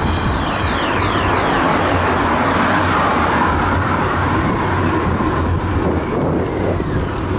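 Steady wind rush and road noise on a handlebar-mounted camera's microphone as a bicycle is ridden along a road, with car traffic alongside.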